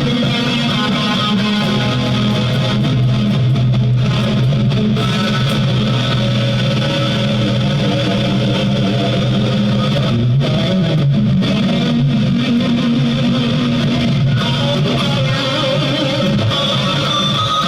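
Guitar music with electric guitar and bass, playing continuously at a steady level.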